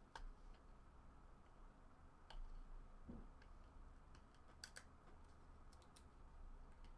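Faint, scattered clicks and light taps of trading cards being handled and flipped through by hand, a small cluster of sharper clicks a little past the middle.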